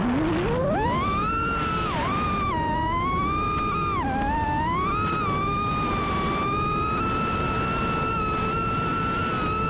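FPV quadcopter's brushless motors and propellers whining, the pitch rising and falling with the throttle. The pitch climbs sharply in the first second, dips briefly twice, then holds fairly steady, with a rushing noise underneath.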